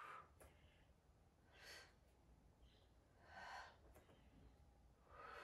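A woman breathing in and out audibly through the mouth, in time with repeated side stretches: four faint breaths, about one every second and three-quarters.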